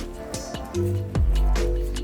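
Background electronic music: sustained synth notes over a deep bass with falling-pitch kick drums in a steady beat.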